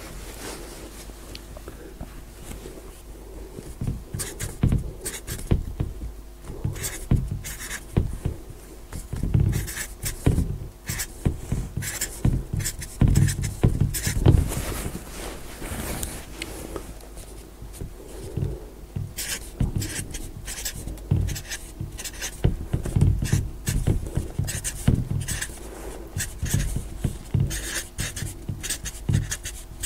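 Marker pen writing numbers by hand on a board: quick scratchy strokes and small taps, in irregular clusters with short pauses between them.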